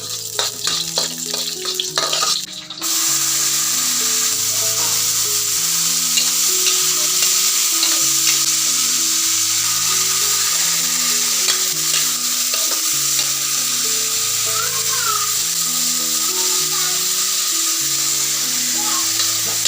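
Food frying in a pan: a few clinks and knocks, then a steady, loud sizzle that starts about three seconds in and keeps going.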